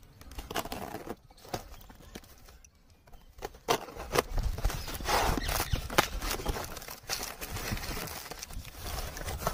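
Cardboard packaging and tape being cut and ripped open with a small pen-shaped tool: irregular scraping, tearing and sharp clicks. They get busier and louder about four seconds in.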